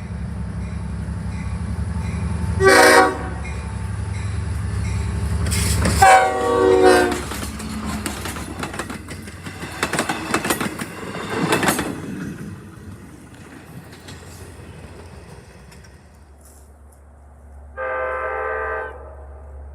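Horn blasts from Long Island Rail Road DE30AC/DM30AC diesel locomotives. A short blast comes about three seconds in over a diesel engine's rumble, and a longer blast comes around six seconds. Wheels then clatter over the rails as a train passes, and another short horn blast sounds near the end.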